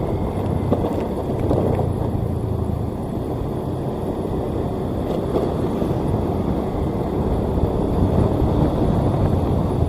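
Diesel engine of a Sakai asphalt paver running steadily under way, a continuous low rumble.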